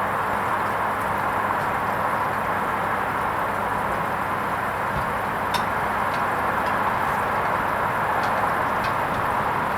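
Hoover Vision HVP16 washing machine running its wool rinse: a steady hiss of water in the machine, with a few faint clicks now and then.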